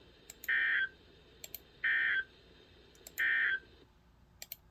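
Emergency Alert System end-of-message data signal: three short, identical bursts of warbling digital tone, each about half a second, roughly a second and a half apart, with faint clicks between them. The burst sequence marks the end of the severe thunderstorm warning broadcast.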